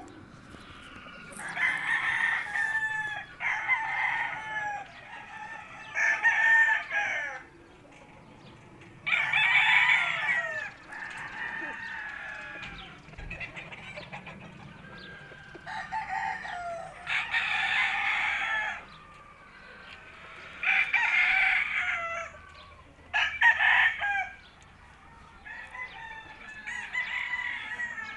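Several gamefowl roosters crowing one after another, about ten crows in all, each lasting a second or two, some overlapping.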